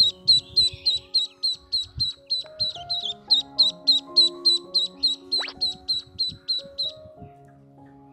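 Duckling peeping rapidly, about four high, slightly falling peeps a second, stopping shortly before the end, over background music.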